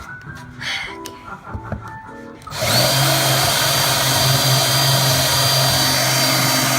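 Electric drill running steadily for about four seconds, starting a little past halfway in, countersinking screw holes. Before it starts, quieter background music from a TV.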